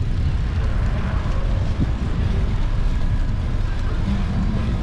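Wind buffeting the camera's microphone during a bike ride, a steady low rumble.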